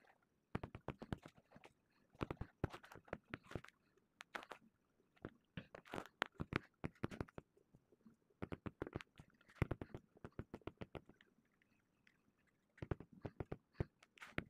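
Faint bursts of rapid clicking and scraping, in clusters of about a second with short pauses between.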